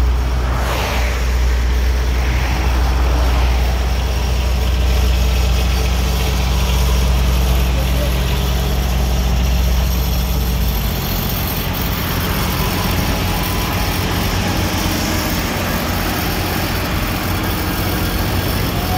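Engine of a Hydrog ZSK-500 road-repair machine running steadily with a deep low hum. About eleven seconds in, the deepest part of the hum drops away and the engine note changes.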